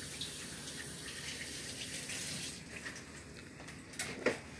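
Kitchen faucet running into a sink as hands are rinsed under it. The water stops a little over halfway through, and two short knocks follow near the end.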